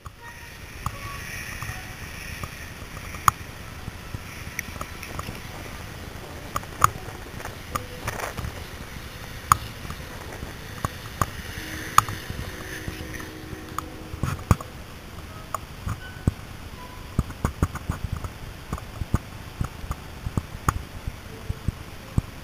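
Outdoor ambience: a steady rushing noise with scattered sharp clicks and knocks, which come more often in the second half.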